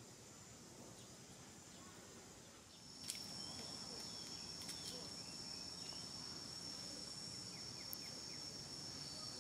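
Outdoor insect noise: a faint high hiss at first, then from about three seconds in a steady, high-pitched insect trill that holds on one note, with a few faint clicks.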